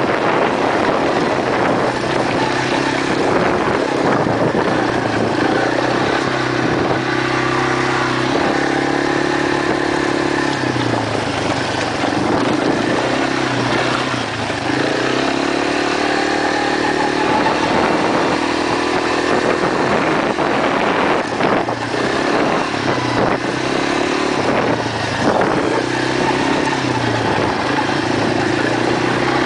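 ATV (quad) engine running while riding, its pitch rising and falling repeatedly as the throttle is worked.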